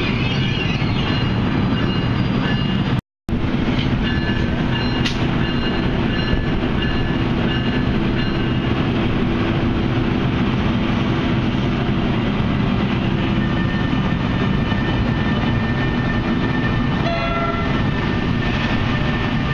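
NJ Transit ALP-46A electric locomotive running alongside, a loud steady hum and whine from its blowers and electrical equipment. The sound cuts out for a moment about three seconds in.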